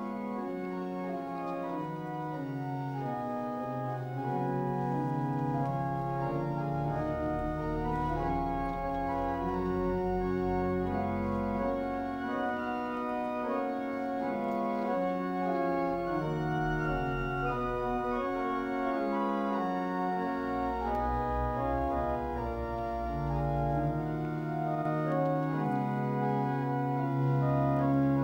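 Church organ playing a slow piece of sustained chords, with deep bass notes coming in about four seconds in and again in the second half.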